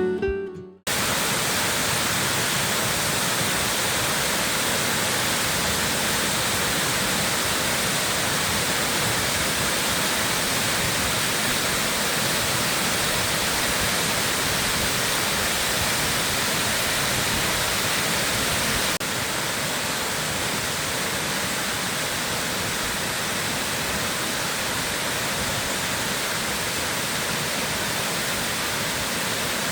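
Steady rushing of a waterfall or fast mountain stream, an even hiss spread from low to high, with no tones or rhythm. It becomes slightly quieter about two-thirds of the way through, at an abrupt change. A music track cuts off just under a second in.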